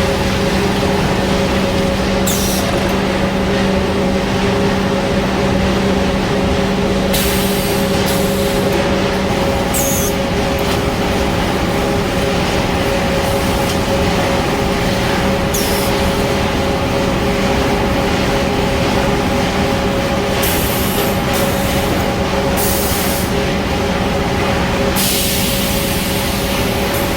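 Automated corrugated-cardboard conveyor line running, a loud steady machine hum with several short hisses spread through it.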